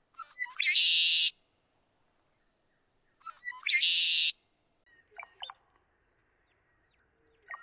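Red-winged blackbird singing its conk-la-ree song twice: a few short notes, then a buzzy trill. About five seconds in, a different bird song follows, made of a few gurgling notes and a very high, thin whistle that slides up and then down.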